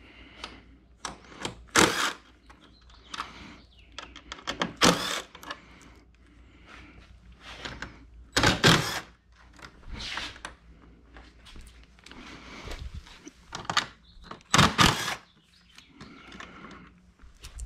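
Short runs of a cordless DeWalt driver backing out T30 Torx body-panel bolts on a Can-Am Spyder RT, between clicks and knocks of hands and tools on the plastic panels. The loudest runs come about 2, 5, 9 and 15 seconds in.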